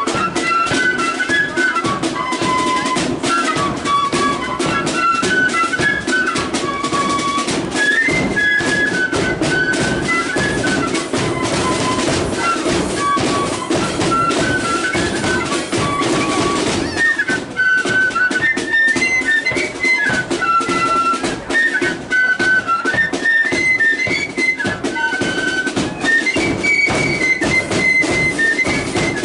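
Marching flute band playing a tune: flutes carry a stepping melody over a steady beat of snare and bass drums.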